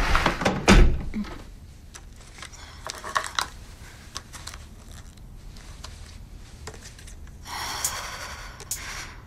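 Two dull thumps with rustling in the first second, then quiet room tone with a few faint small clicks and a soft rustle near the end: handling noise in a small vocal booth as headphones are put on at the microphone.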